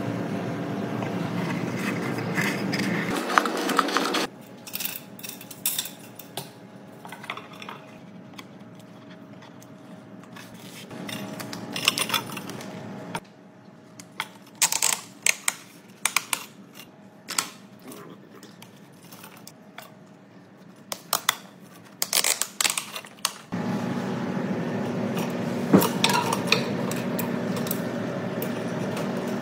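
Scattered clicks and knocks of hard plastic and metal being handled, including a one-handed bar clamp being squeezed and adjusted. A louder, steady sound with several held tones fills the first four seconds and returns for the last six.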